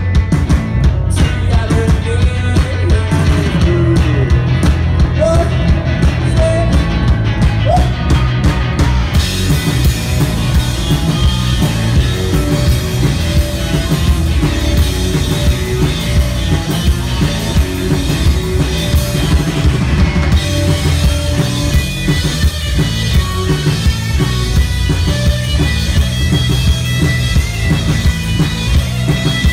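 Live rock band playing loud: electric guitars over a drum kit with a steady beat. The sound fills out and gets brighter about nine seconds in.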